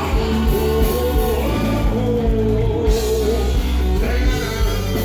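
Music with a singer's voice over a heavy bass beat.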